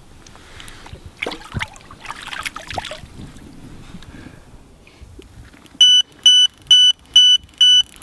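Water splashing about a second in as a pike is slipped back in by hand. Near the end an electronic bite alarm beeps loudly and rapidly, about two beeps a second: a run, a pike taking the deadbait.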